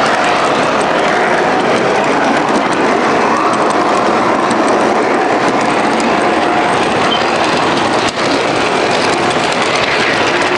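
MTH model subway train running along its track: a steady whir of its electric motors and wheels, with many small clicks.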